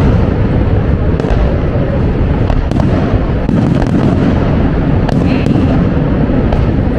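Aerial fireworks shells bursting in a continuous low rumble of booms, with sharp cracks every second or so.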